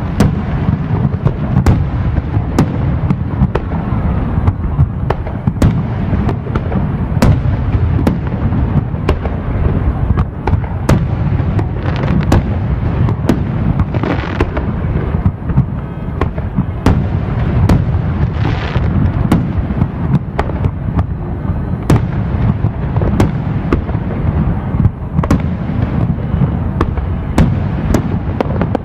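Fireworks display: a continuous barrage of aerial shell bursts, sharp bangs coming several a second over a steady rumble. Two brief hissing crackles stand out about fourteen and eighteen seconds in.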